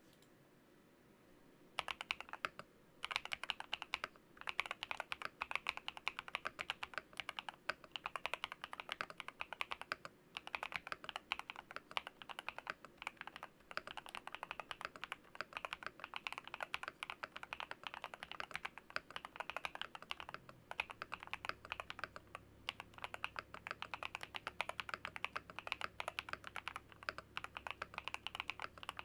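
RK100 mechanical keyboard with lubed Akko Cream Yellow Pro linear switches, MSA-profile keycaps and a foam- and tape-modded case, being typed on quickly in a dense, continuous stream of key clacks. The typing starts about two seconds in, pauses briefly, then runs without a break.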